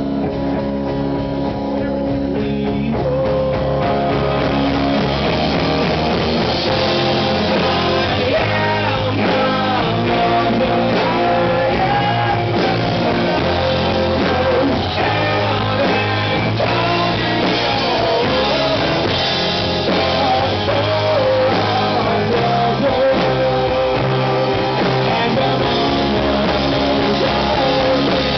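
Rock band playing live: electric guitar, electric bass, keyboard and drum kit playing together.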